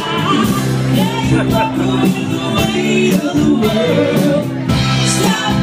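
Live rock band playing a song with a woman singing lead over sustained chords and a steady beat.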